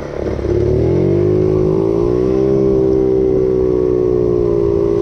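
Small 50cc four-stroke (QMB139-type) scooter engine pulling away. Its pitch rises over the first two seconds, then holds steady at a cruising speed.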